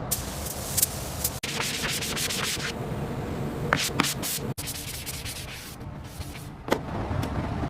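Abrasive sanding and rubbing on a surface, a dense scratchy noise in several short stretches with abrupt cuts between them, about a second and a half in and again about halfway through.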